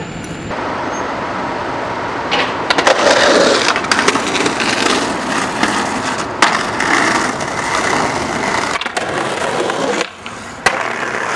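Skateboard wheels rolling over pavement and grinding along concrete ledges, with a few sharp wooden clacks of the board popping and landing. The sound cuts abruptly a couple of times as one clip gives way to the next.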